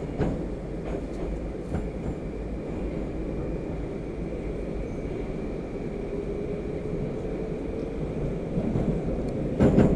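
A Moskva (81-765) metro train heard from inside the carriage, running at speed: a steady rumble of wheels on rail, with a few sharp clacks of the wheels and a louder burst of clacks near the end. A faint whine rises slowly in pitch through the second half.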